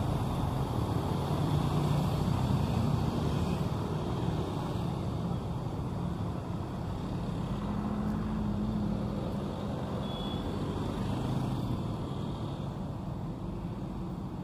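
City street traffic: a steady wash of vehicles going by, with engine hum swelling and fading as a few pass close, about two, eight and eleven seconds in.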